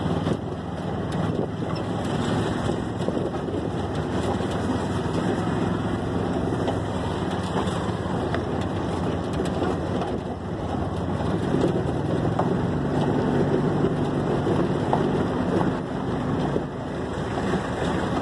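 Small vehicle engine running steadily while driving over a rough gravel road, with scattered rattles and wind noise on the microphone.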